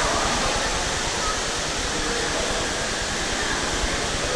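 Steady rushing and splashing of water in an indoor swimming-pool hall, from the pool and its waterslides.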